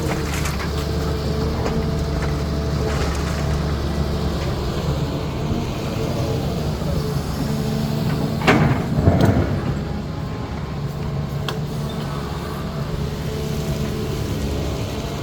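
CAT 320D excavator's diesel engine running steadily under working load. A little past halfway there is a loud burst of scraping and crashing, about a second long, as the bucket works in rock and dirt.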